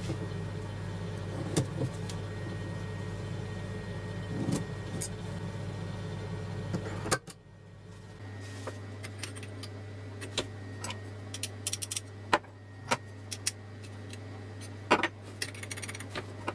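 Small clicks and knocks of hand tools and wood being handled on a workbench (a square and pencil on a wooden block, a small clamp, metal calipers and drill bits), over a steady low hum. The hum drops out for about a second about seven seconds in, and the clicks come more often after that.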